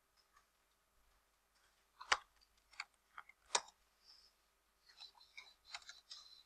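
Computer keyboard keys being tapped: faint, scattered single clicks, then a quicker run of small clicks near the end.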